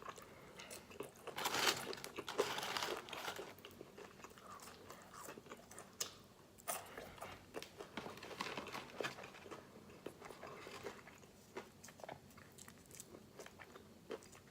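Crunchy bites into crispy fried chicken and chewing close to the microphone, in irregular crackly bursts, loudest in the first few seconds.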